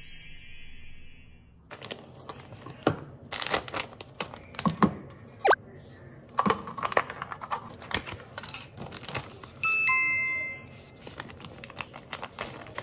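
Background music that stops about two seconds in, then handling noises: scattered clicks, knocks and rustling. About ten seconds in, an electronic chime sounds two notes, a short high one and then a longer lower one.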